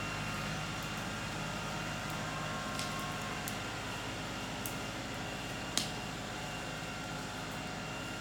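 An engine running steadily at an even, low speed, with a few light clicks and one sharper click about six seconds in.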